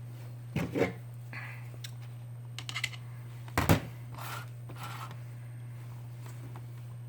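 Tweezers and fingers working thin adhesive tape onto a phone's frame: a few short scratching clicks, the loudest about three and a half seconds in, over a steady low hum.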